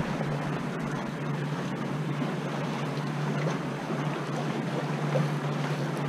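Water rushing steadily along the hulls of a Corsair F-27 trimaran under sail, with wind hissing on the microphone.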